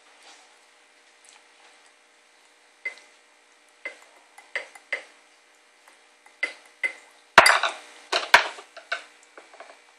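Metal baby spoon clinking in a clear bowl and knocking on a plastic high-chair tray as a baby feeds herself: scattered single clinks, then the loudest clatter about seven to eight seconds in as the spoon is banged down on the tray.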